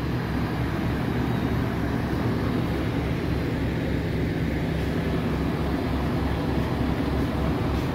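Steady low drone of running machinery, with a quick, even low pulse underneath.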